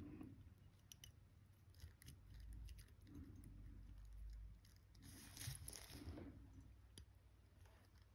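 Near silence with faint, scattered small clicks of watchmaker's tweezers and tools handling a watch movement's parts, with a few soft rustling noises between them.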